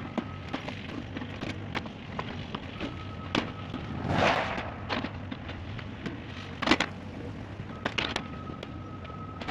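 Earthmoving machine's diesel engine running while it moves dirt, with repeated sharp clanks and knocks from the bucket and a short rush of noise about four seconds in.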